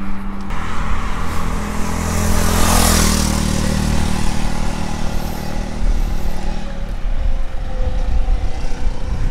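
Road traffic: a vehicle passes close by about three seconds in, over a steady engine hum that fades out about seven seconds in.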